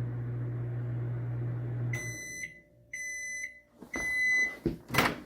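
COMFEE' CM-M093ARD 900 W microwave oven running with a steady low hum, which stops about two seconds in as the cooking cycle ends. Three high beeps follow, each about half a second long, signalling that the cycle is done. Two sharp clunks come near the end.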